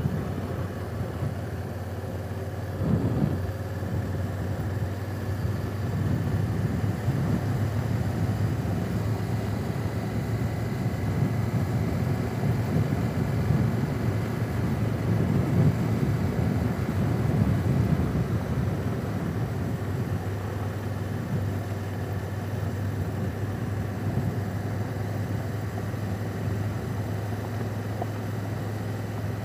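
2017 Honda Africa Twin's parallel-twin engine running steadily under way, a constant low hum under a wash of riding noise.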